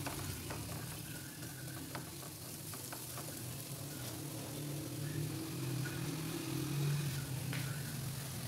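Chopped onion and garlic sizzling in butter in a nonstick frying pan. A wooden spatula stirs and taps against the pan a few times in the first few seconds, over a steady low hum.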